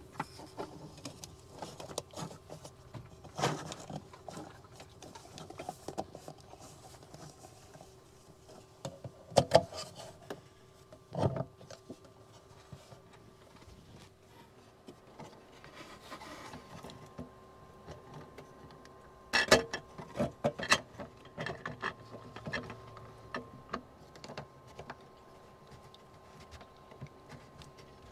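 Black plastic sink strainer parts and rubber gaskets being handled and fitted: scattered clicks, knocks and rubbing, with clusters of sharper knocks about a third of the way in and again past two thirds. A faint steady hum sits underneath.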